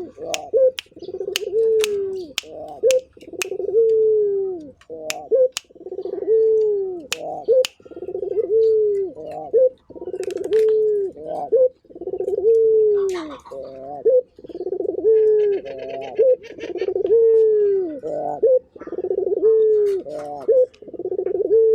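Barbary (ringneck) dove cooing over and over: a long coo that falls in pitch at its end, followed by a short note, repeating about every two seconds. Sharp clicks sound in the first few seconds, and a small bird chirps faintly about two-thirds of the way through.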